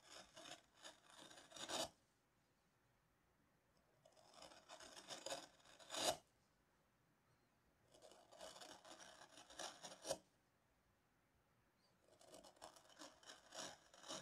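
A small hand carving gouge being pushed through beech, with four scraping cuts about four seconds apart. Each cut lasts around two seconds and ends in a sharp snap.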